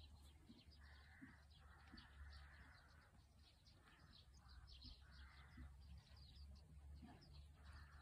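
Near silence with faint distant birds: scattered high chirps and several harsh, half-second caws, over a low steady rumble.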